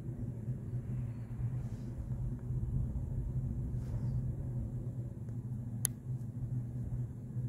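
Steady low rumble with a constant hum, and a single sharp click about six seconds in.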